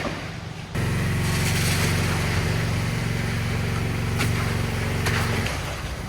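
An engine running steadily, cutting in suddenly about a second in and dropping off shortly before the end.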